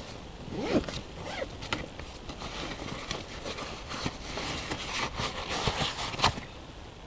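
A nylon backpack being unzipped and rummaged through: irregular rustling of fabric with scattered clicks and scrapes.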